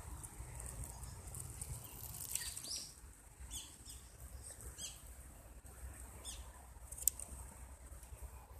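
Kitten pouncing at a short fishing-rod toy: faint, brief rustling and scratching a handful of times, with one sharp tick about seven seconds in.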